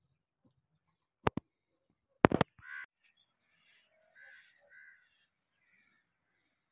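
Crows cawing a few times in short, harsh calls. A couple of sharp clicks come about a second in, and a louder clack comes just before the first caw.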